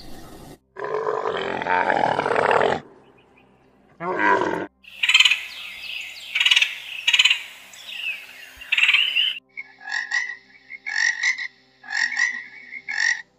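A run of different animal calls: a loud, rough call about a second in lasting about two seconds, a short burst, then a stretch of high bird calls, and in the last few seconds a frog croaking in short repeated groups.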